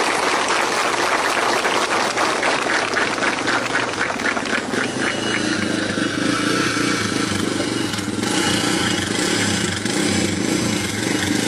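Off-road motorcycle engine running and idling, a steady low engine hum from about halfway through. Before that there is a rough, noisy hiss with a rapid rattle in it.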